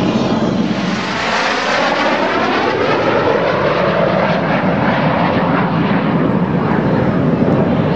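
Jet noise of Canadair CT-114 Tutor jets, each with a single J85 turbojet, flying past overhead in formation: a loud, steady rushing sound with a hollow tone that sweeps slowly in pitch as they go by.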